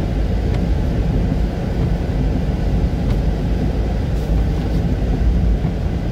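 Steady low rumble of a moving vehicle, engine and road noise heard from inside the cab while driving.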